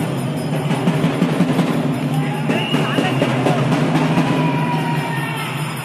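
Loud drum-led music with a steady, driving beat of dense drum strikes; a few held higher notes come in past the middle.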